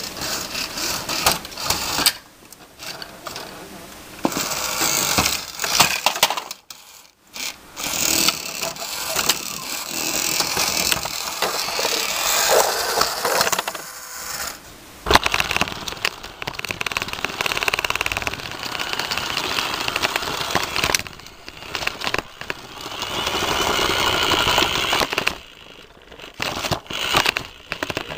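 Small electric toy motors whirring and plastic parts rattling and clicking in a running Rokenbok monorail set. The noise is uneven, dropping out briefly several times and then starting again.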